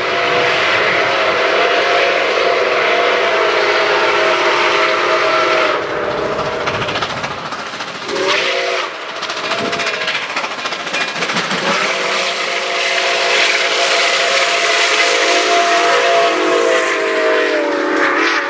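Nickel Plate Road 765's steam whistle blowing a chord of several tones over a steady hiss: one long blast of about six seconds, two short blasts that sag in pitch as they end, then another long blast of about seven seconds.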